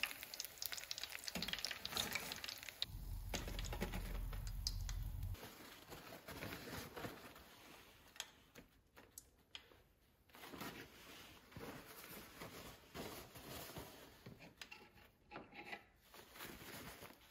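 Hot deep-frying oil sizzling and crackling around a panko-breaded block of mac and cheese as it is lifted out, thinning after a few seconds to faint, scattered crackles. A brief low rumble about three seconds in, then light paper-towel rustling.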